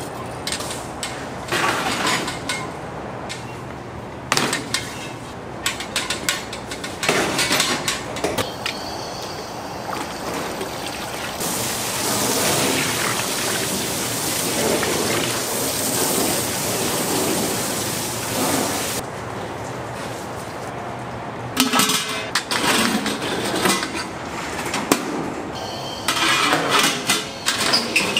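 Food-factory kitchen work noise: repeated clattering and knocking of utensils and containers, with a steady hiss lasting several seconds in the middle.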